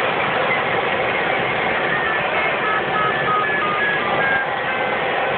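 Steady rush of air over a glider's canopy in flight, with an electronic audio variometer sounding short beeps that step up and down in pitch.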